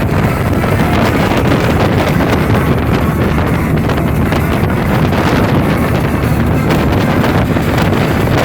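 Wind buffeting the microphone aboard a speedboat running at speed, a steady loud rush with the boat's engine and water underneath, and music playing throughout.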